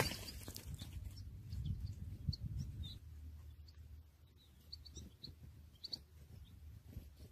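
Faint, scattered short high chirps of European goldfinches, with a low rumble in the first three seconds.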